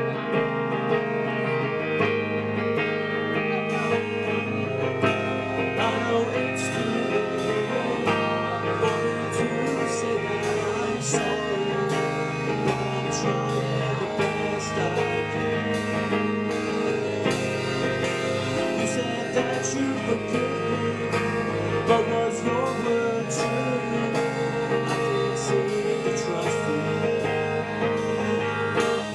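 Live rock band playing a song: guitars and bass over drums with frequent cymbal hits, continuous throughout.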